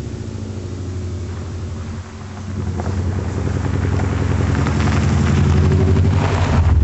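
2002 Subaru Forester's naturally aspirated flat-four, exhaling through an unequal-length header and a straight pipe with no rear muffler, giving a loud uneven boxer rumble as the car drives past. The sound dips briefly about two seconds in, then grows louder as the car approaches and passes close, with tyres crunching on gravel near the end.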